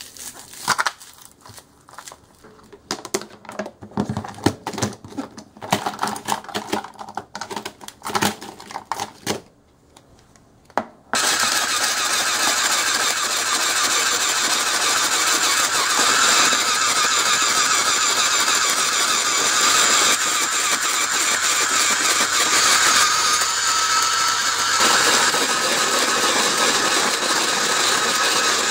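Plastic ice-cube tray being twisted, with scattered clicks and knocks as frozen yogurt-and-fruit cubes are worked loose. About eleven seconds in, an electric shaved-ice machine starts abruptly and runs steadily, its blade shaving the frozen cubes into flakes.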